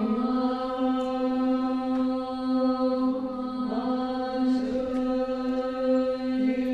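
Women's voices chanting a Bön long-life prayer in unison, holding one steady note with small wavers.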